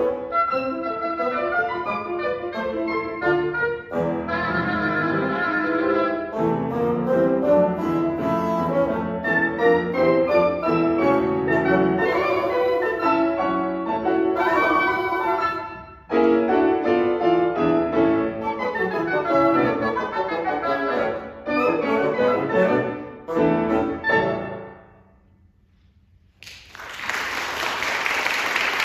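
Piano, oboe and bassoon trio playing a fast classical passage that ends about three-quarters of the way through. After a couple of seconds of near silence, audience applause starts.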